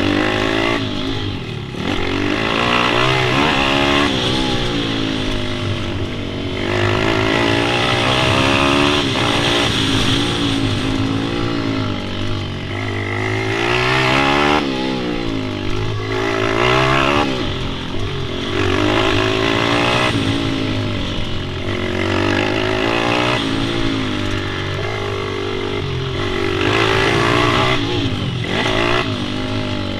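Pit bike engines revving up and falling back again and again, the pitch rising and dropping every few seconds as the bikes ride the track.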